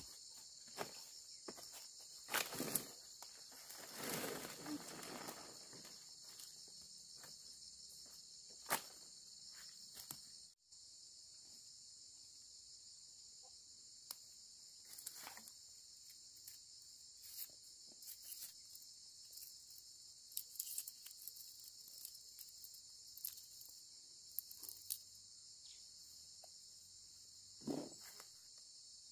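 A steady, high-pitched drone of insects in the forest. Over it come scattered snaps and rustles as leaves and fruit clusters are handled, with a longer rustle about four seconds in and another near the end.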